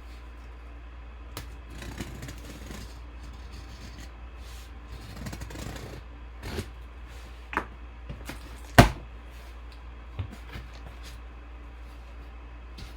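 Handling noise from opening a sealed, taped-up cardboard box: scattered scrapes and clicks, with one sharp, loud snap about nine seconds in, over a steady low hum.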